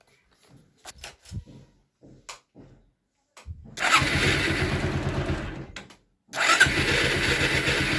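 A few faint clicks, then the Bajaj Pulsar 180's electric starter motor cranking the engine, a steady whir with rapid even pulses, for about two seconds. It stops, then starts cranking again a little past halfway and keeps running without stopping: the starter relay's contacts sticking shut, so the starter runs on by itself.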